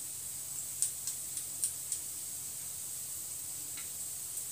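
Gulab jamun dough balls deep-frying in hot oil: a steady high sizzle, with a quick run of about five sharp pops in the first two seconds and one more near the end.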